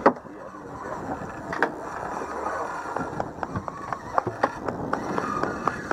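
Open-water ambience from a small boat: a steady wash of water chop and wind noise, with irregular knocks and clicks against the hull. A single sharp, loud knock comes right at the start.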